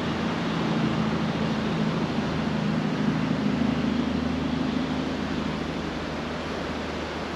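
Steady rushing outdoor noise with a low hum underneath, unchanging throughout.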